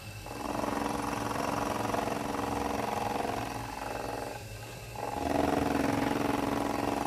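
Drill press running while a cutting tool bites into metal as the quill is fed down, giving a steady pitched whine over the motor's hum. The whine comes in two stretches of a few seconds each, with a short lull between them.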